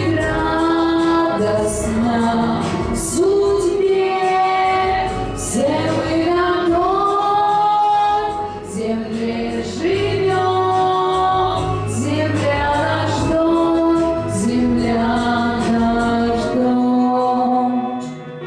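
A young woman singing a pop song into a handheld microphone over backing music with a steady beat; she holds long notes and slides up into several of them.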